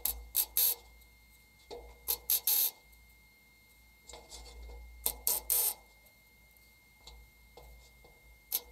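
Leather welding gloves being pulled on and handled, giving a few short clusters of scratchy rustling. A faint steady high whine runs underneath.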